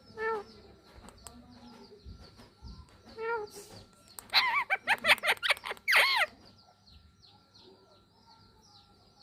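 Indian ringneck parakeet calling: a single call near the start, another about three seconds in, then a loud run of rapid screeching calls lasting about two seconds. Faint high chirps repeat in the background throughout.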